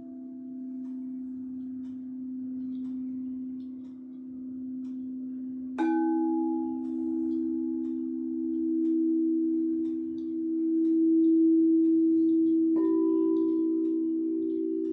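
Crystal singing bowls ringing in long, overlapping steady tones that swell and fade. A new bowl is struck about six seconds in, and another, slightly higher one near the end, each adding its tone over the ones still ringing.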